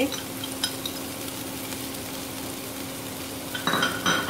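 Chopped spring onion greens tipped from a glass bowl into a frying pan of frying onion, with a few light clicks of the bowl against the pan in the first second. A soft frying sizzle runs over a steady hum, with a brief louder noise a little before the end.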